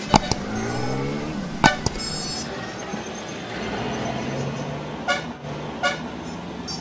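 Street traffic noise: a motor vehicle's engine rising in pitch in the first second or so, with a few short horn beeps over the steady traffic noise.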